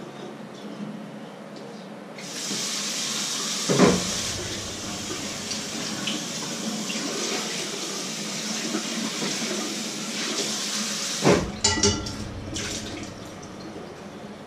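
Kitchen sink tap running while something is washed under it, the water starting about two seconds in, with a loud knock a couple of seconds later and a few clattering knocks near the end.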